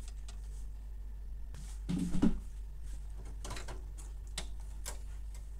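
Hands working a printer cable into its connector on the circuit board: faint plastic clicks and handling noise, with one louder knock about two seconds in, over a steady low hum.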